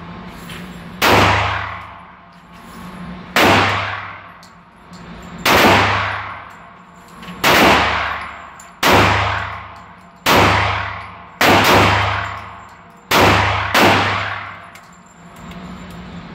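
Semi-automatic pistol firing about ten single shots, one to two seconds apart, each followed by a long ringing echo in the enclosed indoor range.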